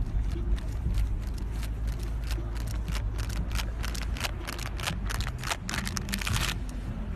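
Chain-link fence clinking and rattling in a quick run of sharp clicks as a cat scrambles over its top rail and grips the wire mesh. This runs over a steady low outdoor rumble.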